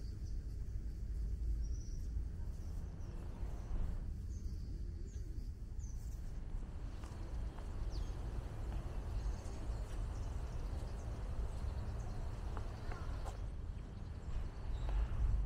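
Garden ambience: a steady low rumble with a few short, high bird chirps scattered through it.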